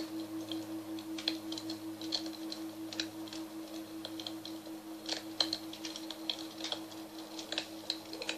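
A singing bowl ringing in a long, steady low tone with a fast, even pulsing wobble, over the irregular crackle and pops of a campfire.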